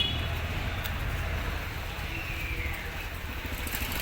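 Street traffic noise: a steady low rumble of vehicles with a faint falling tone about two seconds in.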